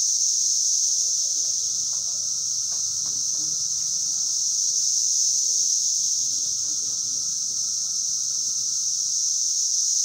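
Brood X periodical cicadas in a massed chorus from the trees. The sound is a loud, unbroken, high-pitched drone, with a fainter lower steady tone beneath it. It is ear-numbing.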